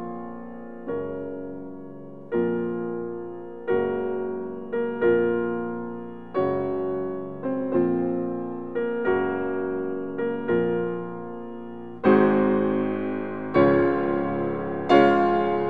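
Slow, gentle solo piano music: single notes and chords struck about once every second or so, each left to ring and fade. It grows fuller and louder about twelve seconds in.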